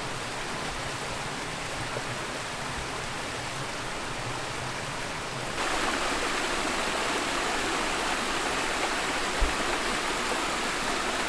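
A shallow mountain stream running over rocks. About halfway through it gives way to a louder, brighter rush of water spilling over a small weir and cascading down the rock face. There is one brief low thump near the end.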